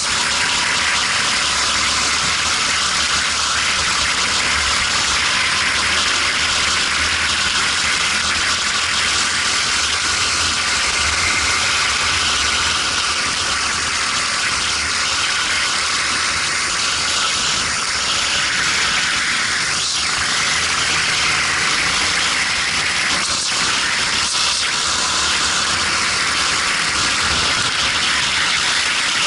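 Steady rushing wind noise on a helmet-mounted camera as a racing kart runs on track, with the kart's engine running low underneath.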